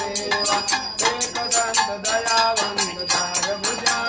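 Devotional singing with a puja bell rung rapidly and steadily, several strokes a second, during the havan.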